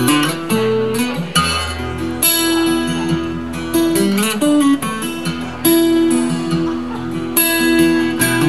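Acoustic guitar strummed in an instrumental passage between sung lines, with chords ringing between strums that land every second or two.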